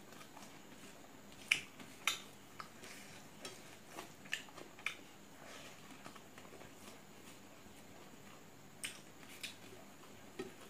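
Eating rice by hand from a steel plate: fingers working the food on the plate and chewing make about ten short, soft clicks and smacks, clustered in the first half and again near the end.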